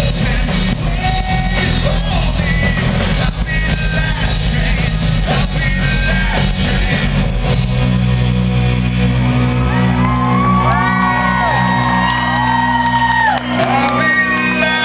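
Live rock band playing loudly through a concert hall PA, with singing over electric guitar, bass and drums. About halfway through, the busy drumming gives way to held chords and long sustained sung notes.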